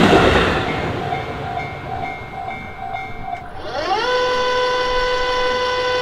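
The tail of a Tobu Noda Line electric train passing over a level crossing, its rumble fading, while the crossing's electronic warning bell rings at about two strokes a second and then stops as the train clears. About halfway through, a steady pitched tone slides up and holds.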